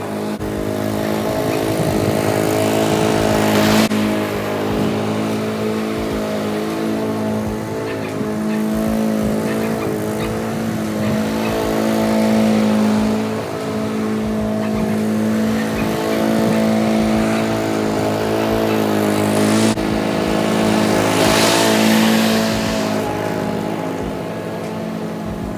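2016 Honda twin-blade walk-behind lawn mower's engine running steadily under mowing load, its pitch shifting slightly now and then, with brief surges of hiss as the blades cut.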